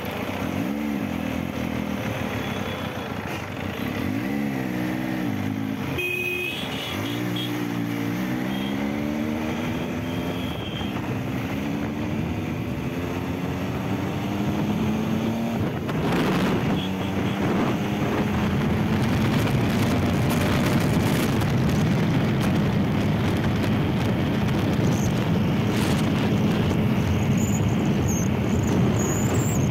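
Benelli Tornado Naked Tre 899's three-cylinder engine accelerating hard on the road: its note climbs and drops back at each gear change over the first half, then holds a steady drone at speed. Wind rushes over the microphone, growing in the second half.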